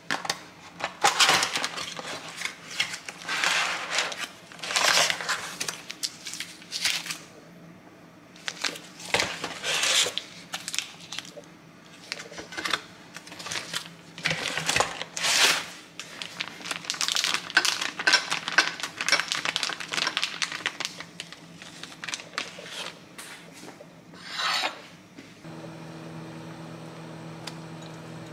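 Kitchen food-prep sounds: irregular clatters and scrapes of utensils against dishes and pans, with some rustling. Near the end these give way to a steady appliance hum.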